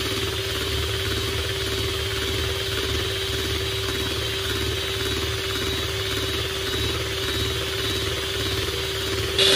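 Electric hand mixer running steadily, its beaters whisking a runny cream and condensed-milk mixture in a plastic bowl, with an even motor hum. Near the end the sound abruptly becomes louder.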